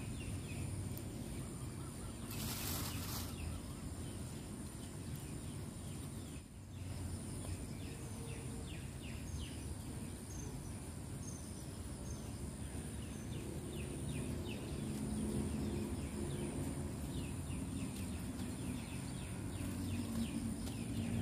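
Outdoor ambience: a steady high-pitched drone typical of insects, many short chirps repeating throughout, and a low, even background rumble.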